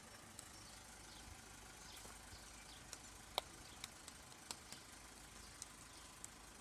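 Near silence: quiet open-air background with a handful of brief, faint ticks scattered through it.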